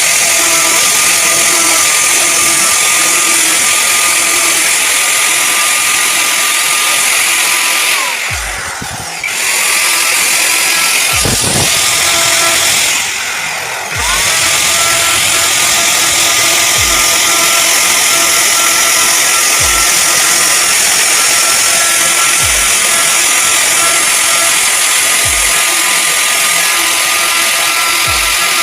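An electric woodworking power tool running steadily under load. Twice its pitch drops briefly and then climbs back, and dull knocks come about every three seconds.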